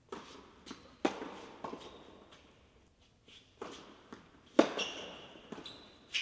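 Tennis balls struck by rackets and bouncing on an indoor hard court during a doubles rally: a string of sharp pops at irregular intervals, the loudest about halfway through, each echoing in the large hall.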